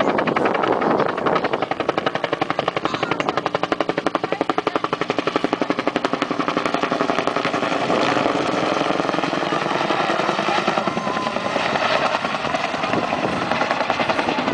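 Bell UH-1 Iroquois helicopter passing overhead, its two-bladed main rotor beating with a fast, even blade slap that holds steady throughout.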